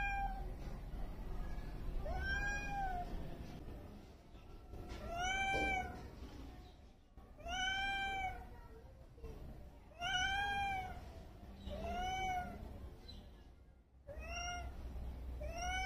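White cat meowing repeatedly, about eight meows spaced two to two and a half seconds apart, each one a short call that rises and then falls in pitch.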